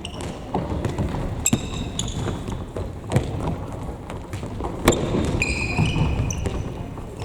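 Futsal ball being kicked and bouncing on a gym floor, a string of sharp thuds with the loudest about three and five seconds in, with high shoe squeaks on the court and indistinct players' voices in the hall.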